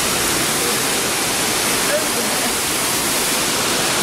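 Waterfall pouring over rock into a plunge pool: a steady, loud rush of water.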